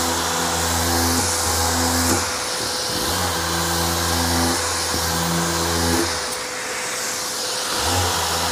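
Dual-action orbital sander with 320-grit paper running steadily over cured body filler and the surrounding paint, a continuous whirring hiss, taking out coarse 180-grit scratches before primer.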